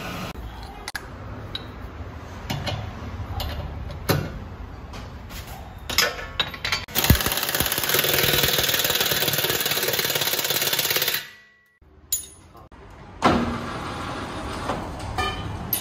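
Clicks and knocks of tools on metal over a low rumble. About seven seconds in comes a sharp knock, then a loud, steady hiss for about four seconds that cuts off suddenly, followed by more clatter.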